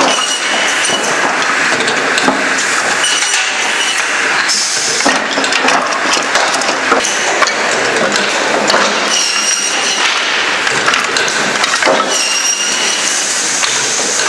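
Cut firewood pieces clattering continuously as they tumble off a conveyor belt into a sheet-metal hopper and onto a wood pile, with the machinery running. A high ringing tone sounds briefly several times.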